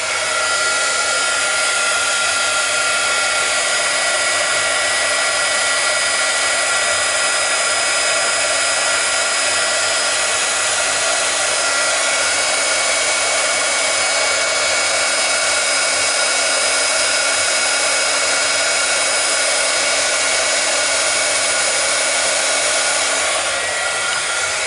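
Handheld craft heat tool (embossing heat gun) running steadily, a loud rush of air with a steady whine, as it heats glitter paint on cardstock until the paint bubbles. It switches off near the end.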